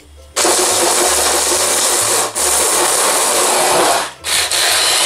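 Electric mini chopper (a hand-blender motor on a small chopper bowl) chopping almonds and sun-dried tomatoes. It starts about half a second in and runs in pulses, with a brief break a little past two seconds and another about four seconds in.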